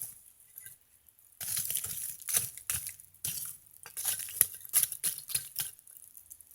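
Lumps of charcoal clinking and rattling in an irregular run of sharp clicks as a steel hoe shaft is pushed down into the fire. It starts after a quiet first second and dies away near the end.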